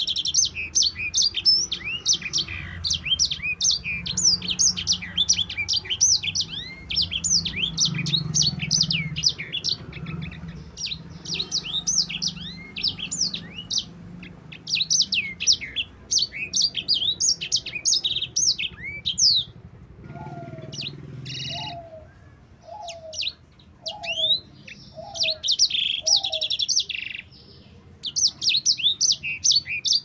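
Sanger finch singing a long, fast rolling song of high chirps and trills. About two-thirds through it breaks off, and a lower short note repeats six times about a second apart. The chirping then resumes near the end.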